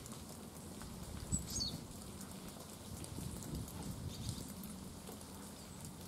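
A small wild songbird gives a short, thin, high call that drops in pitch about a second and a half in, and a fainter high call near four seconds in. Underneath is a low rumble with scattered faint ticks, and a soft low thump just before the first call.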